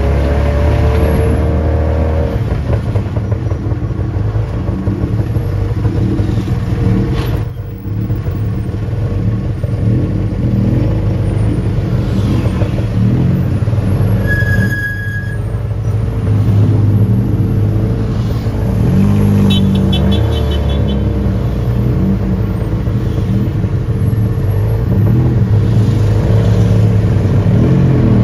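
Tuk-tuk engine running close by, its pitch rising and falling as it revs through traffic, with a short high beep about halfway through.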